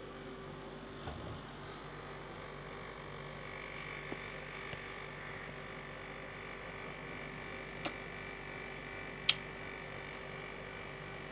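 Faint steady electrical hum with a thin high whine coming in about three seconds in, broken by four short clicks, the loudest about nine seconds in.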